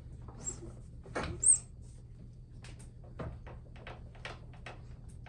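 Metal hand tools being handled: scattered clicks and knocks, with one sharp ringing clink about a second and a half in, then a run of light quick clicks.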